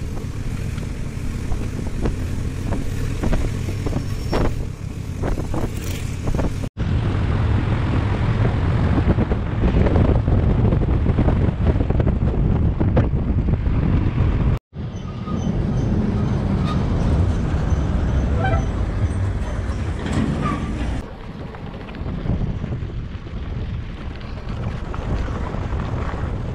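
Motorcycle riding noise through a helmet-mounted camera: wind rushing over the microphone with the engine and passing traffic underneath. It cuts out abruptly twice and changes again later, across separate riding clips.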